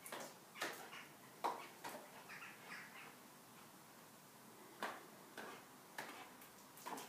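Doberman snapping at falling snowflakes: a string of short, sharp clicks of its jaws closing, coming at irregular intervals with a pause in the middle.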